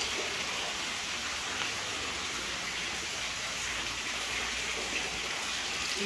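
Steady rushing noise of water, even and unbroken, with no separate drops or splashes standing out.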